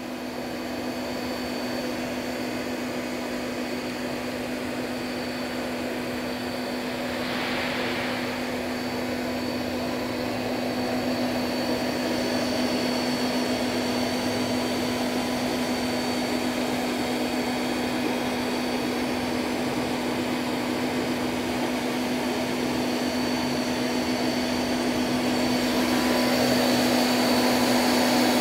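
Daewoo DMV-500 CNC vertical machining center standing powered up: a steady, even hum with fan-like noise. A brief hiss comes about eight seconds in, and the sound grows a little louder near the end.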